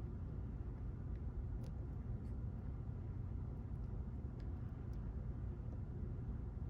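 A few faint, sharp ticks of a steel hook pick tapping and lifting pins inside a JPM pump lock, over a steady low background rumble.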